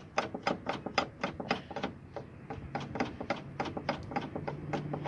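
Car front brake rotor spun by hand on the hub, giving a quick run of light clicks, several a second. It is turning without the rubbing noise now that the cracked, bent dust shield that rubbed on the rotor has been torn off.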